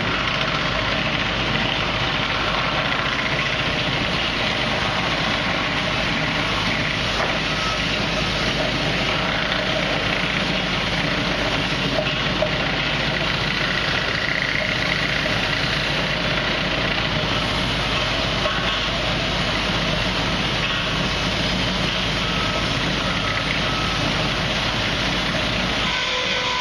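Steady, unbroken din of sawmill machinery running, with a Wood-Mizer LT50 band sawmill in operation.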